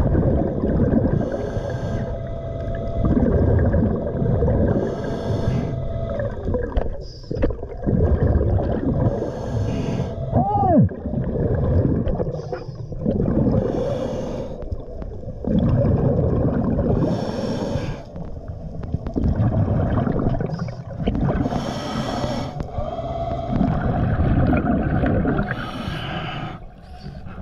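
Scuba regulator breathing underwater: rushing, bubbling exhalations every few seconds over a constant low rumble. A faint steady tone runs through the first few seconds, and a short rising-and-falling whistle comes about ten seconds in.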